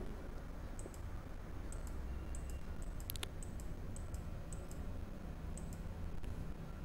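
Faint computer mouse clicks at uneven spacing, working the Cycle Start button of a CNC lathe simulator block by block in single-block mode. One louder, sharper click comes about three seconds in, over a low steady hum.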